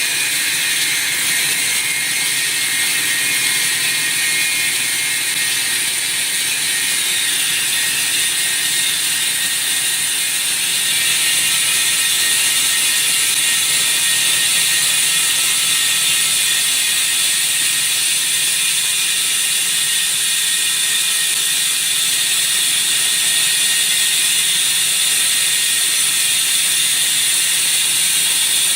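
HF 105DM high-frequency electric wall saw running its diamond blade through concrete: a steady, high-pitched grinding hiss with faint steady whines, getting a little louder about eleven seconds in.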